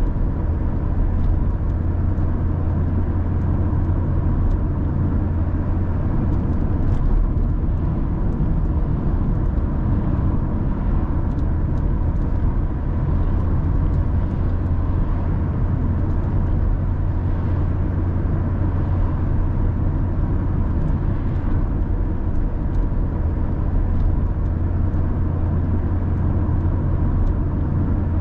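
Car driving at a steady speed: a constant low engine and road drone with a faint steady whine above it.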